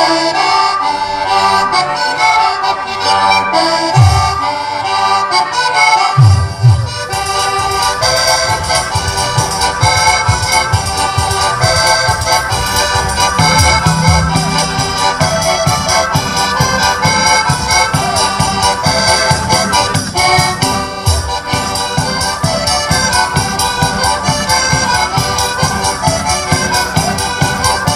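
Accordions, a piano accordion together with small diatonic button accordions (organetti), playing a lively traditional folk dance tune. Dancers' steps and a few heavy stamps thud on the stage in time with the music.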